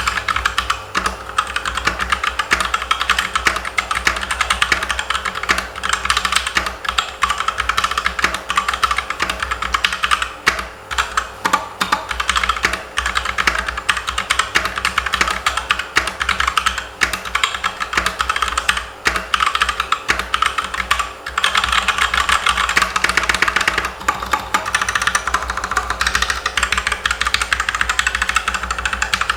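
Continuous fast typing on the Cooler Master CK721 mechanical keyboard with tactile brown switches: a dense, steady clatter of keystrokes.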